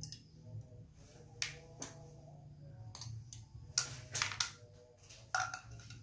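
Scattered sharp clicks and clacks of small plastic toy pieces being handled during a toy fishing game, about seven in all, the loudest in the second half.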